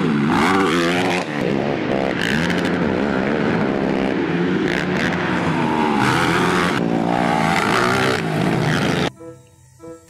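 ATV (quad bike) engines revving hard, the engine pitch repeatedly rising and falling as they accelerate and jump. The engines cut off suddenly about nine seconds in, leaving quiet plucked-string music.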